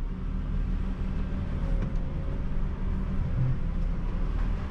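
Isuzu Giga concrete mixer truck's 14,250 cc diesel engine running steadily while driving, a low even hum heard inside the cab.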